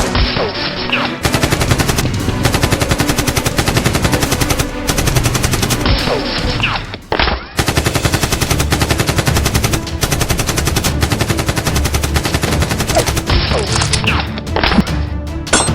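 Automatic gunfire sound effects in long, rapid bursts of shots, with a brief break about 7 seconds in.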